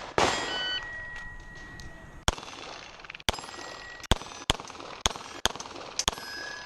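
A string of about eight pistol shots from a Beretta 92 at steel targets, the struck steel plates ringing after the hits.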